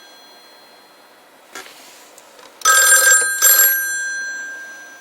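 Telephone bell ringing on an extension called through a Panasonic 308 PBX: the tail of one ring dies away at the start, then a short double ring about two and a half seconds in, its tones fading slowly afterwards.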